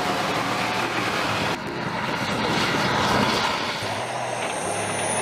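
Main battle tank driving cross-country: a steady engine drone with track and ground noise, and a thin high whine rising near the end.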